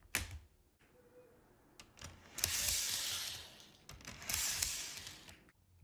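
Plastic clicks and two stretches of scraping, the first a little over a second long and the second under a second, as an N-scale model passenger car is set onto a blue plastic rerailer and slid onto the track.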